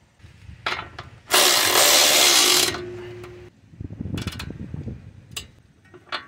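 Power wrench running a nut down onto the upper ball joint stud in one burst of about a second and a half, followed by a couple of seconds of lighter clicking and rattling from the tool and socket.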